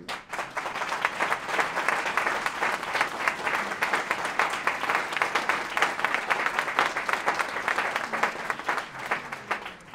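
Audience applauding: many people clapping together, starting straight away and tapering off near the end.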